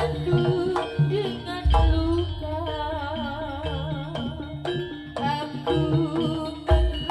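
Live Javanese jaranan music played through loudspeakers: hand-drum (kendang) strokes and deep bass hits under a gamelan-style ensemble, with a wavering melody that bends up and down about halfway through.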